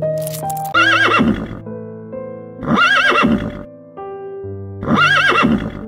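A horse whinnying three times, about two seconds apart: each neigh is a quavering call that falls in pitch. Background music with sustained notes plays under the whinnies.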